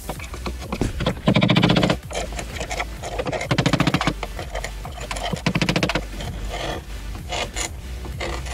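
Three short bursts of rapid scraping or rasping strokes, each lasting under a second, with a few sparser taps near the end, over a steady low hum.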